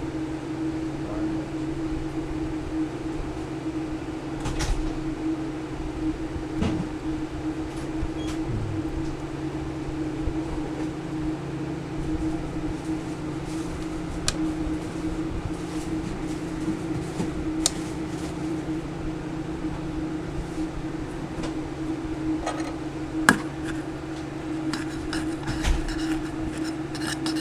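Steady low electrical or motor hum, as of a fan or bench equipment running, with a few light clicks and taps scattered through, the sharpest a little before the end.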